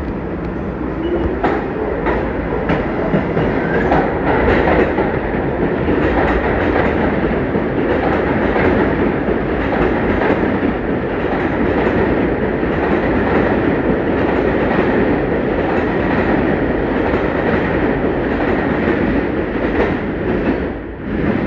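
New York City subway train running past, a loud steady rumble with the clatter of wheels over rail joints. It drops away just before the end as the train clears.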